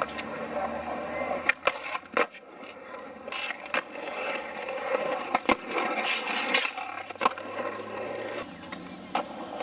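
Skateboard wheels rolling over a concrete skatepark surface in a steady rough rumble, with several sharp clacks spread through it.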